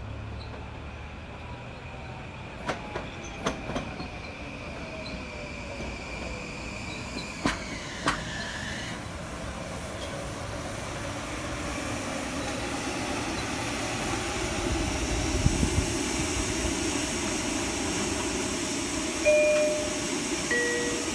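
Kawasaki M9 electric multiple-unit train pulling into a station: a falling whine from the traction motors as it slows, a few sharp clicks of the wheels over rail joints, and the rumble and hiss of the cars rolling close by. Near the end, a two-note falling door chime sounds as the doors open.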